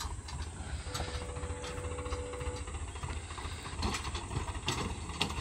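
Swaraj 744 XT tractor's diesel engine running steadily under load as it pulls a fully loaded trolley, a low rumble with wind hiss. A faint steady tone comes in about a second in and lasts about a second and a half.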